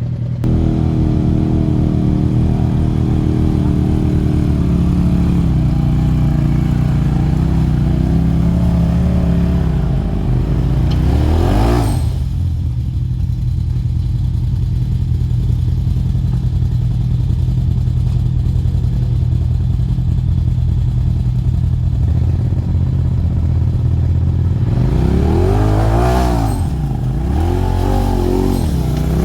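Polaris RZR side-by-side engine running under load on a rough trail section. It revs up and down about a third of the way in, and again in a longer series of blips near the end.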